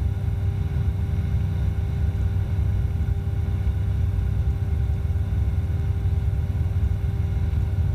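Steady drone of an Evektor SportStar light sport aircraft's Rotax 912 engine and propeller in cruise, heard from inside the cockpit: an even low rumble with a constant hum over it.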